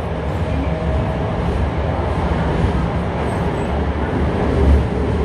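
Running noise inside a Toei 5300-series subway car between stations: a steady, loud low rumble of wheels on rail and car body.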